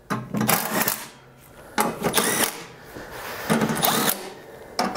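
Cordless impact driver at a low setting starting the belly-pan bolts on a snowblower, in short bursts of about half a second, four times.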